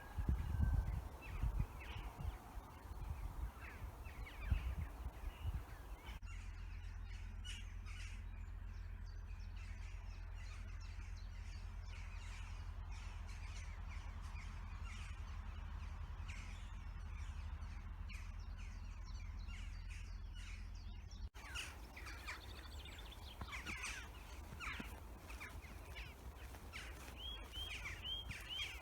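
Wild birds calling, some of them harsh crow-like caws, over a low rumble of wind on the microphone. Near the end one bird repeats a short high call about three times a second.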